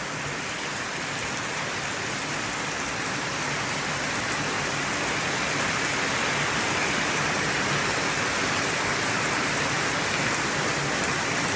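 Heavy rain pouring down, a steady dense hiss that grows a little louder over the first few seconds.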